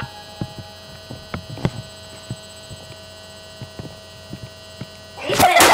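Steady electrical hum made of several fixed tones, with a few faint scattered clicks and knocks; about five seconds in, a loud burst of rustling, knocking noise cuts in.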